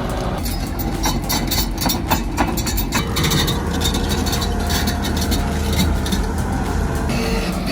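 Engine of a heavy earthmoving machine running steadily, with a run of knocks and clanks between about one and three seconds in.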